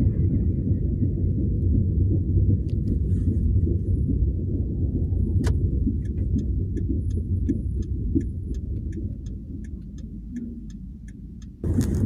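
2008 Hyundai Accent driving slowly, with a low rumble from road and drivetrain. From about halfway a light, regular ticking sets in, about four a second and spacing out as the rumble fades, like a car slowing down. The owner describes it as a quiet knocking and rustling from the rear at low speed, and suspects failing wheel hub bearings or a chipped brake pad. The rumble jumps back up sharply near the end.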